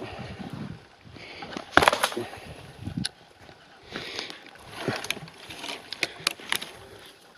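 Boots stomping and stepping on a fallen, partly rotten pine trunk and the brush around it: an uneven series of woody cracks and crunches, the loudest a little under 2 s in. The trunk does not snap through.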